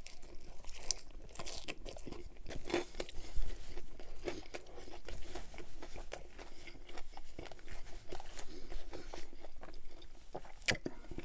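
Close-up mouth sounds of eating a chicken Caesar wrap: chewing with irregular crisp crunches and wet clicks, and a sharper click near the end.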